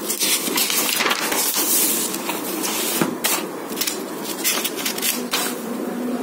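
Pages of a printed book being flipped by hand close to the microphone: paper rustling and crackling, with many short sharp clicks of handling.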